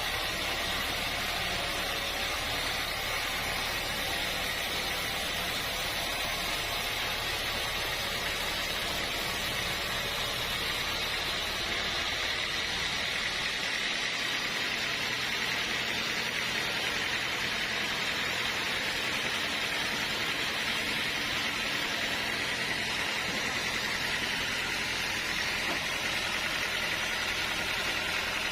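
Sawmill machinery running steadily: a constant mechanical hiss and drone with no breaks. A low hum underneath drops away about halfway through.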